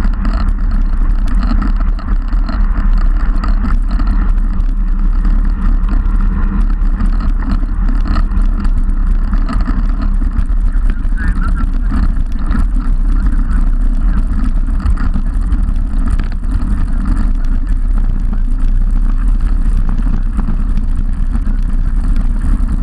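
Wind buffeting the microphone of an action camera mounted on a moving road bike: a loud, steady low rumble with a rush above it.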